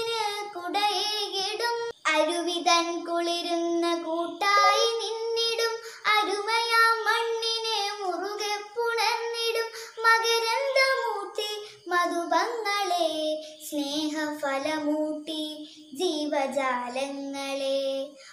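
A young girl singing a Malayalam poem solo and unaccompanied, in long held notes that glide up and down, with short breaks for breath between phrases.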